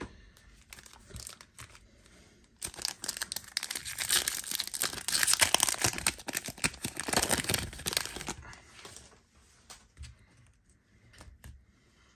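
Foil wrapper of a Panini Contenders football card pack being torn open and crinkled: about five seconds of dense crackling starting a few seconds in, then a few faint ticks.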